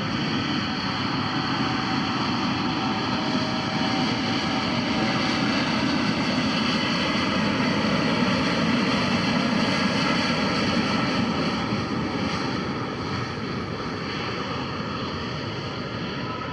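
Boeing 787-8 twin-jet airliner's engines at takeoff power, a steady jet roar that swells as the aircraft rolls past at speed and fades as it moves away down the runway.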